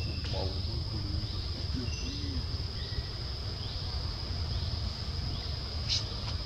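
Steady high-pitched drone of insects in forest, over a constant low rumble, with a few faint short calls in the first couple of seconds and a brief click near the end.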